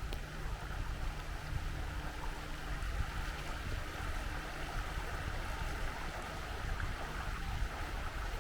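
Small woodland stream flowing and trickling steadily, with a low rumble underneath.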